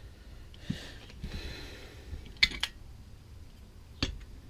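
Edelbrock carburetor parts being handled on a workbench: a soft rustle, then a couple of small metal clicks and one sharper tap near the end.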